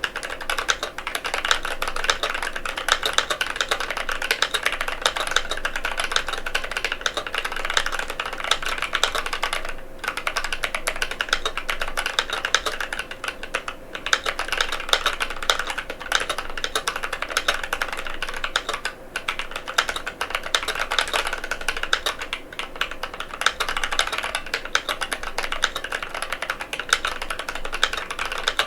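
Fast, continuous typing on a NovelKeys NK87 aluminum-case mechanical keyboard with KTT Matcha tactile switches: a dense stream of keystroke clacks broken by a few brief pauses.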